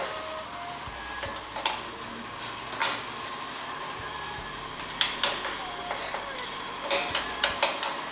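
Sharp plastic clicks and knocks of a CPU cooler being fitted back onto a motherboard, with a quick run of clicks about five seconds in and another near the end.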